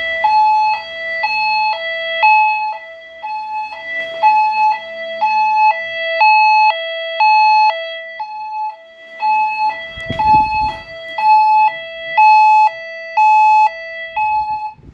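Homemade tornado alert tone from a voice evacuation fire alarm system, played over its speakers. It is a loud two-tone signal that alternates steadily between a lower and a higher pitch, each tone lasting about half a second.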